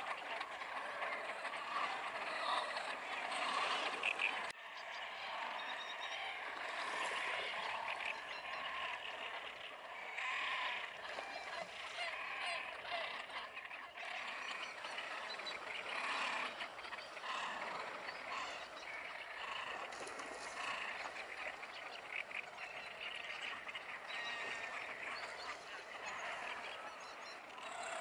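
Wetland ambience from a reedbed: a dense chorus of many birds calling and chattering together, without pause.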